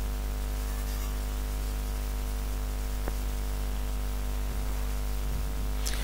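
Steady electrical hum with hiss, made of many even tones and unchanging throughout, with one faint tick about three seconds in.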